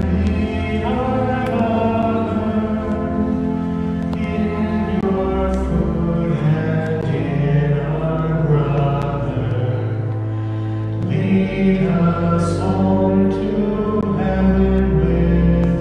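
Voices singing a slow hymn in a church, the notes long and held, over sustained low notes beneath.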